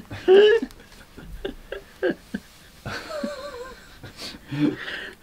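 A man laughing, stifled behind his hand, in short broken snatches of breath and voice.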